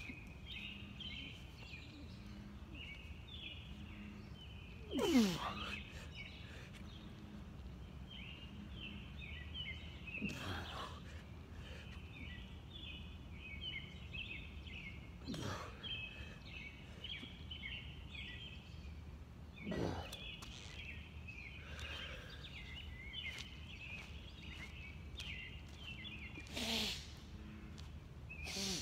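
Night insect chorus: rapid, repeated high chirping that never stops. About every five seconds a short sound falls in pitch, the loudest about five seconds in.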